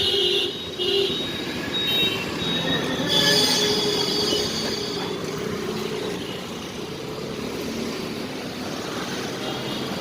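Road traffic noise, steady and continuous, with several short high tones in the first few seconds.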